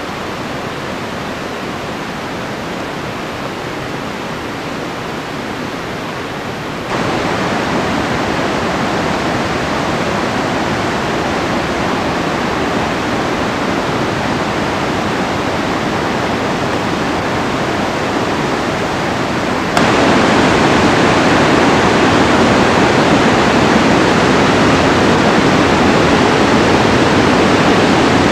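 River water rushing through a rocky gorge below a bridge: a steady roar that jumps louder about seven seconds in and again about twenty seconds in.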